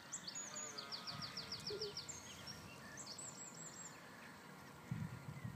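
Birds singing outdoors: a rapid run of about eight high, falling chirps in the first second and a half, then scattered chirps and whistles. Low rumbles come in near the end.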